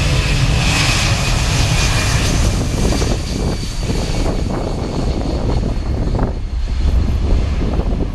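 US Air Force C-17 Globemaster III's four turbofan engines running loud on departure: a high whine fades over the first few seconds, leaving a deep rumble.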